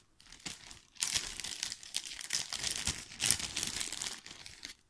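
Crinkling and rustling as a hand rummages to get out a ready-tied carp rig: a quick crackle of many small clicks, busiest from about a second in and stopping just before the end.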